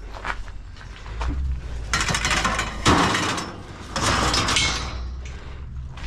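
Scrap being shifted and dragged around in a loaded pickup truck, with scraping stretches and a sharp clank about three seconds in.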